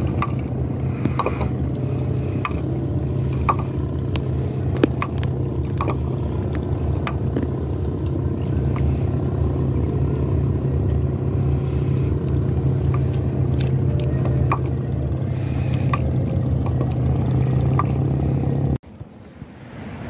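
Engine droning steadily with a low hum, with scattered faint clicks over it; the drone drops away suddenly near the end.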